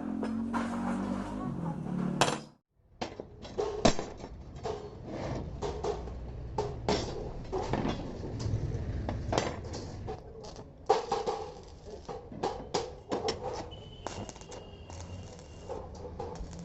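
Irregular metal knocks and clinks, like steel pieces being handled and tapped, with a short break about two and a half seconds in.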